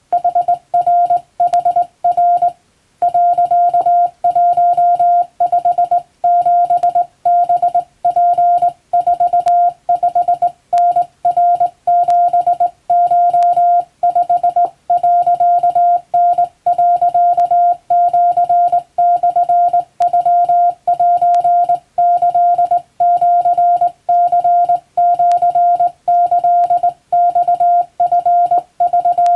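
Morse code sent as a single steady beep tone, keyed on and off in short dots and longer dashes, spelling Japanese wabun code, with a brief pause about three seconds in.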